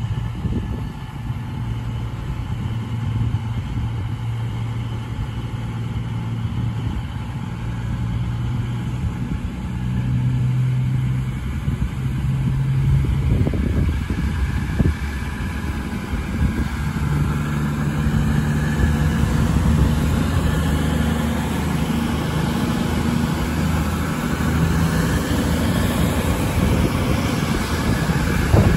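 CrossCountry Class 221 Super Voyager diesel-electric train pulling through the station, its underfloor diesel engines running with a low drone whose pitch steps up and down several times as the carriages go by.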